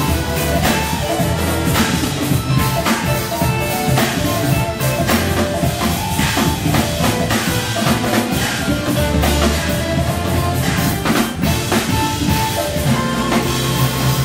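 Live band playing: drum kit hits over sustained organ and keyboard chords, with bass and electric guitar.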